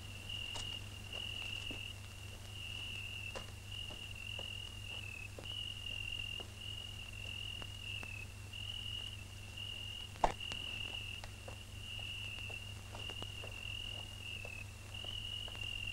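A cricket trilling: one steady, high, continuous note with a few brief breaks, over a faint low hum and scattered clicks, with one sharper click about two-thirds of the way through.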